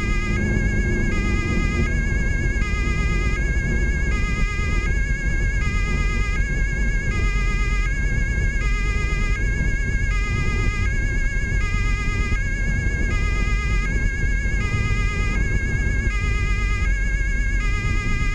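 German police two-tone siren (Martinshorn) sounding continuously, switching between a high and a low pitch about every three quarters of a second, over the steady road and engine rumble of a car travelling on the motorway.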